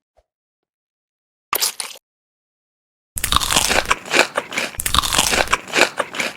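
Close-miked crunchy eating: a short crunch about a second and a half in, then steady crunching and chewing of crisp food from about three seconds in. Each stretch stops abruptly into dead silence.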